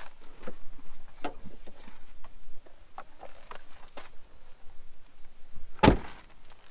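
Scattered light clicks and knocks of items being handled in the back of a vehicle, with one sharp, louder thump near the end.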